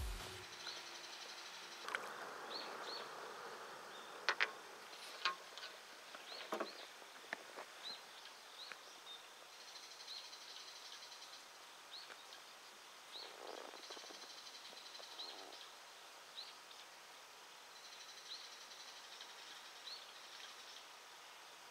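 Outdoor ambience of insects trilling and short high chirps repeating every second or two, with a few sharp clicks and taps between about four and seven seconds in.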